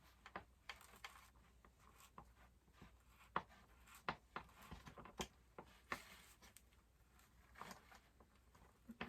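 Faint, irregular clicks and taps of a hand tool and hardware as a hip-pad bolt in a kayak's outfitting is cranked down tight, the sharpest tap about a third of the way in.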